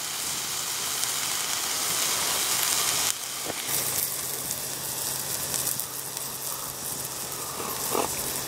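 Burger patty sizzling in a cast-iron skillet over a campfire, a steady hiss. About three seconds in it drops abruptly to a quieter hiss with a low steady hum.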